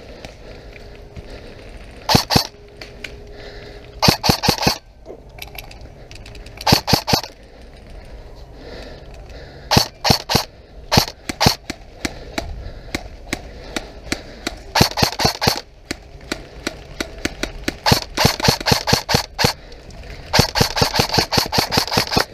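Airsoft rifles firing in short rapid bursts of sharp clicking shots, again and again, with a longer burst of about two seconds near the end.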